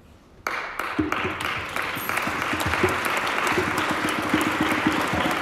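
Audience applauding in a hall: a dense, steady clapping that breaks out suddenly about half a second in.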